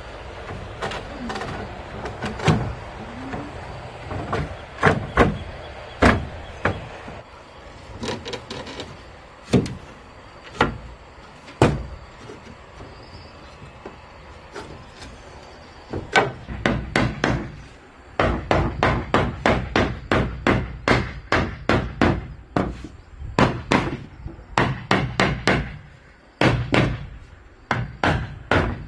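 Hammer driving nails into wooden wall boards and trim strips: scattered blows at first, then a steady run of two to three strikes a second through most of the second half.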